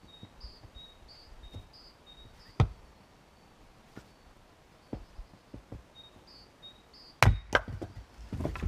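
Fiskars X25 splitting axe chopping firewood. One sharp chop comes about a third of the way in, then two hard strikes in quick succession near the end, followed by a short run of smaller wooden knocks.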